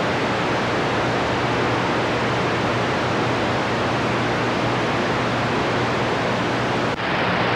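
CB radio receiver hissing with steady band static between transmissions, the signal meter showing only a weak signal. A short click and dropout come near the end.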